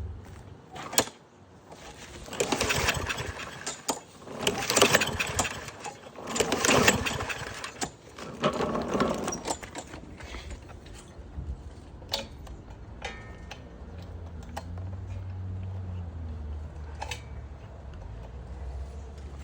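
Lawn Boy push mower being pull-started: four hard pulls on the recoil starter, each about a second of the engine cranking over without catching, followed by a few light clicks and a faint low hum. The engine won't start, which the owner puts down to an air leak or a clogged carburettor.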